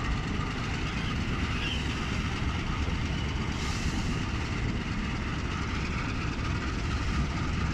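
Train moving along the track, a steady rumble with a short hiss about halfway through.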